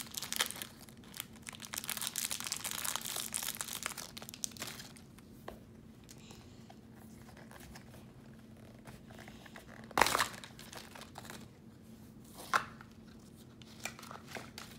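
Small plastic toy wrapper being torn and crinkled open for the first few seconds, then quieter handling with a sharp click about ten seconds in and a smaller one a couple of seconds later.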